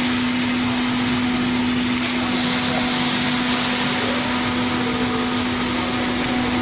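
Steady hum of running machinery: one constant low note under an even rushing hiss, unchanging in level.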